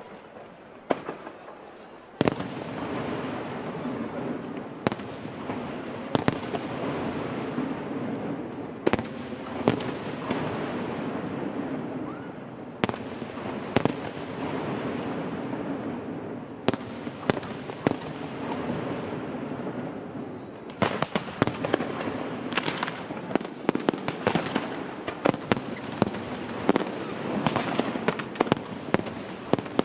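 Aerial fireworks display: shells bursting with sharp bangs over a continuous din, the show opening with a loud bang about two seconds in. The bangs come thick and fast in a rapid flurry over the last third.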